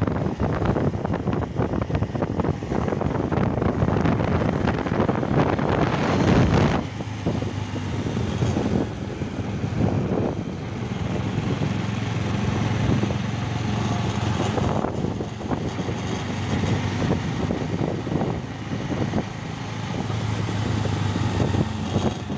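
Motorcycle engine running steadily under way, with wind rushing over the microphone. The rush is heavier for the first several seconds, then eases and leaves the engine's low drone more in front.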